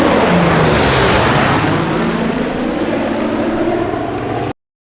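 Loud propeller-driven aircraft engine noise, a dense steady drone with a low hum running through it, cutting off suddenly about four and a half seconds in.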